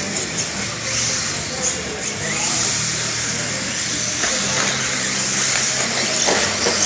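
Electric radio-controlled stadium trucks racing on a dirt track: a steady high whine of their electric motors and drivetrains, with tyres on the dirt.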